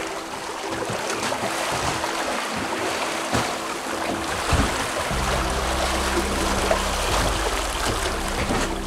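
Water rushing and churning in a sailing catamaran's wake, a steady hiss with small splashes. Low held music notes come in about halfway through.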